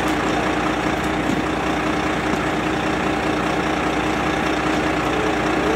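Heavy truck engine idling steadily, a constant low hum.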